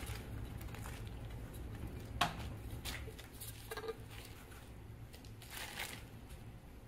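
Chopped onion scraped off a metal bench scraper into a plastic-lined crock pot and spread by hand: faint rustling and crinkling of the liner and food, with a sharp light tap about two seconds in.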